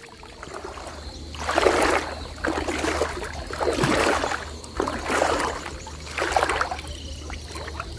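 Water sloshing and splashing around a person's legs as she wades through shallow pond water, in about five separate surges a second or so apart.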